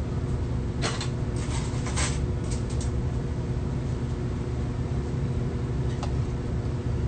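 Steady low hum of commercial kitchen machinery, with a few short clatters of handling about one and two seconds in and once near the end.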